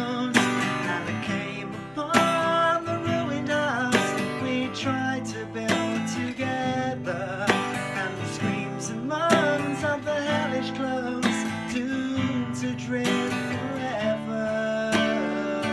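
Acoustic guitar strummed in a steady rhythm, with a voice singing a melody over the chords.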